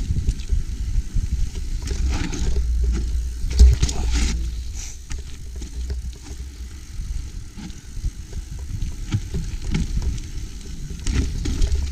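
Mountain bike rolling over a wooden boardwalk with steps: tyres knocking over the planks and the bike rattling, with one hard knock about three and a half seconds in, over a steady low rumble of wind on the camera microphone.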